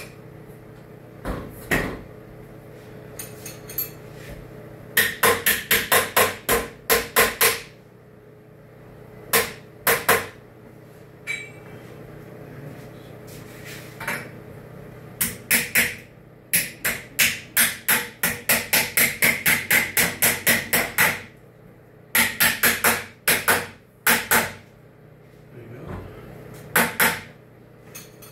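Hammer blows striking metal hardware in several runs of quick, even strokes, about three a second, the longest run a dozen or more blows; a steady low hum sits underneath.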